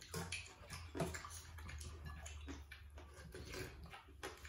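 Noodle soup being slurped, with spoons and forks scraping and clinking in stainless steel bowls, in many short irregular sounds over a low steady hum.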